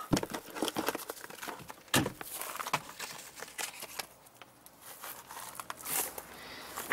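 Rustling, crinkling and scattered clicks and knocks of a hand rummaging under a car seat and handling a small cardboard box, with sharper knocks just after the start and about two seconds in.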